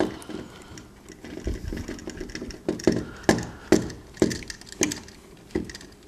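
Plastic twist-on wire nut spun by hand onto a wire splice, with a string of irregular sharp clicks and crackles as it tightens down. The loudest clicks come in the second half.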